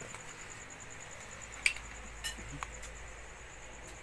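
Crickets chirping in a steady, fast, even pulse. A sharp click stands out a little under two seconds in, followed by two fainter clicks.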